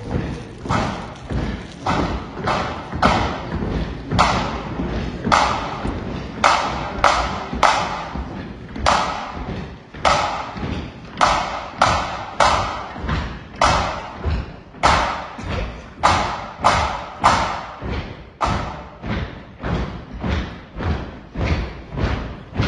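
Pipe band drums beating a steady marching time, about two strokes a second, with no bagpipes playing.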